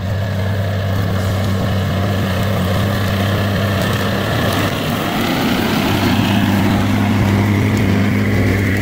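Heavy machine's diesel engine running steadily with a constant low hum.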